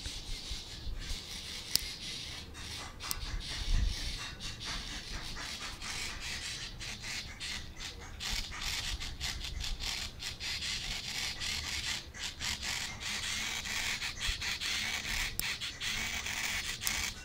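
Small hobby servo motor buzzing and whirring in many short, irregular spurts as it jumps between randomly commanded angles. There is one low bump about four seconds in.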